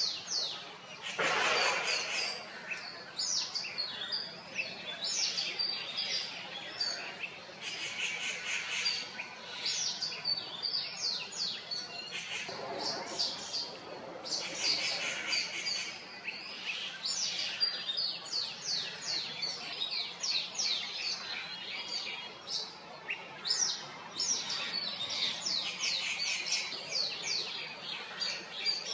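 Woodland birds chirping and calling, a steady chorus of many short, quickly falling notes, with a harsher, noisier sound about a second in and again about halfway through.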